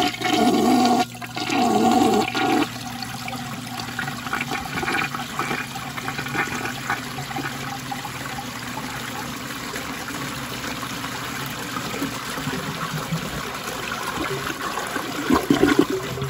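Flush of a 1986 American Standard Cadet toilet: water rushes loudly into the bowl for the first two or three seconds, then swirls and drains with a steadier sound, with a louder spell near the end.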